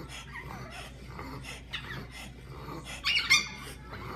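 A chihuahua and a French bulldog play-fighting, giving a run of short, high-pitched dog yips and whines, with the loudest yip about three seconds in.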